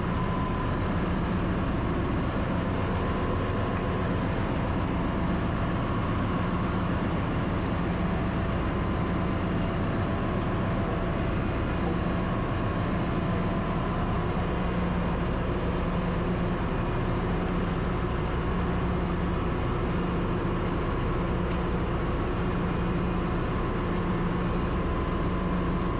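Ship's engine-room machinery running: a steady, unchanging drone with a strong low hum and a few held tones.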